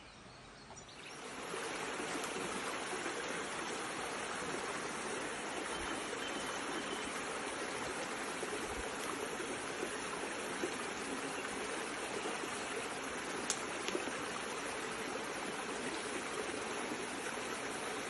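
A stream running steadily: an even rush of water that fades in about a second in and holds level.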